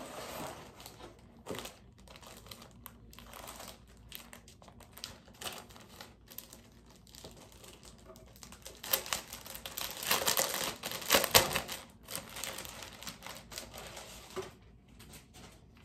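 Clear plastic packaging crinkling and rustling as items in plastic sleeves are handled and lifted out of a cardboard box, loudest around ten seconds in.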